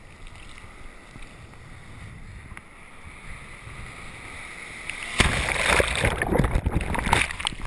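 Tropical-storm surf and wind: a steady rushing noise of breaking waves. About five seconds in, it suddenly turns much louder and rougher as wind and spray buffet the microphone.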